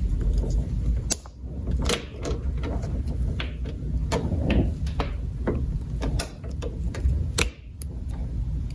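Irregular clicks and knocks of plastic and metal high-pressure hose fittings being handled and fitted together with a hose connector, over a low rumble of handling noise.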